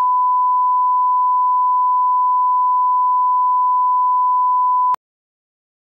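Bars-and-tone 1 kHz reference test tone: one steady, loud pure beep held for about five seconds, then cut off abruptly.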